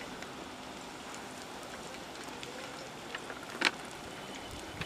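Garlic pieces frying in oil in a flat iron pan, a steady faint sizzle with scattered small crackles, and one sharp knock about three and a half seconds in.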